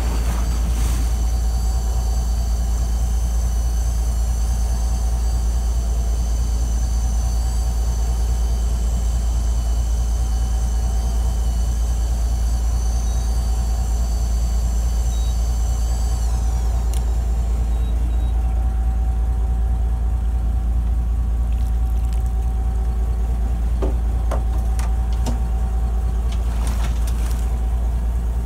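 Fishing boat's engine running with a steady low drone. A high whine over it glides down and stops a little over halfway through, and a few faint knocks follow near the end.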